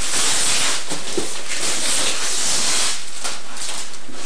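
Wrapping paper rustling and crinkling as presents are handled and unwrapped, loudest over the first three seconds.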